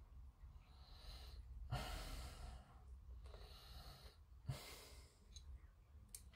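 Faint breathing of a person close to the microphone: about four slow breaths, with a couple of light taps in between.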